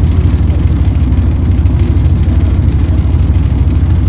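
Bristol K5G double-decker bus's Gardner five-cylinder diesel engine running steadily under way, a loud, even low rumble heard from inside the saloon.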